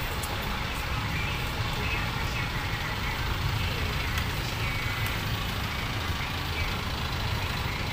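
Street traffic: vehicle engines running as a small box truck drives slowly across the intersection, over a steady low rumble.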